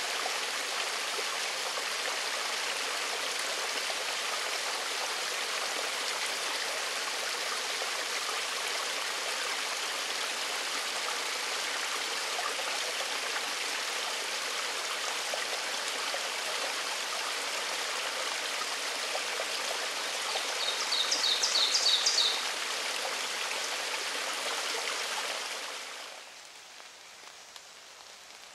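Small woodland stream trickling and splashing steadily over rocks. About twenty seconds in, a quick run of high chirps lasts about two seconds, and near the end the water sound drops away sharply.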